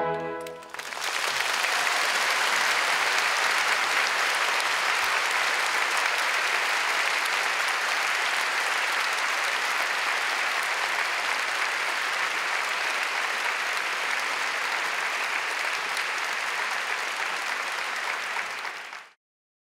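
An orchestra's final chord dies away, then a concert hall audience applauds steadily. The applause cuts off suddenly near the end.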